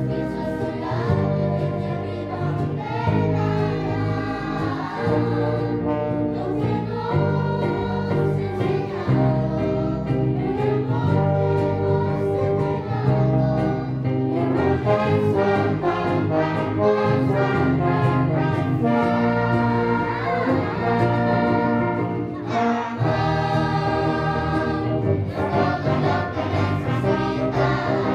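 A choir singing with instrumental accompaniment, sustained chords changing from note to note.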